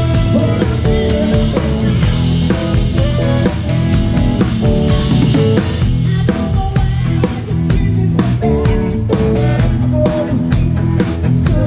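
Live band music: a drum kit with cymbals keeps a steady, busy beat under electric guitar.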